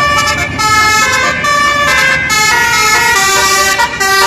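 Bus telolet horn, a set of tuned air-horn trumpets, playing a quick tune of several notes that change every fraction of a second, over the low rumble of the bus's engine.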